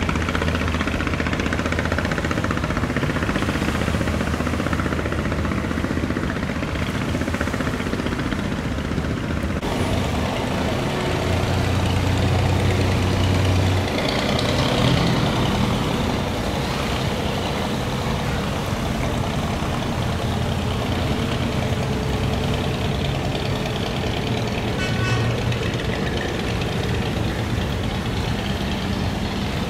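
Barge engine running with a low, steady drone under a dense wash of noise. It grows louder for a few seconds partway through.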